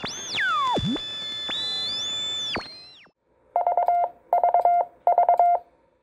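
Electronic intro sound effect: synth tones swoop down and up and hold for about three seconds and then fade, followed by three quick groups of rapid beeps on one steady mid-pitched tone, keyed like Morse code.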